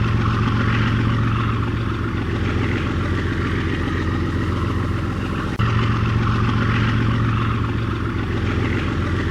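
Diesel locomotive engine running with a steady low rumble, breaking abruptly and picking up again about five and a half seconds in.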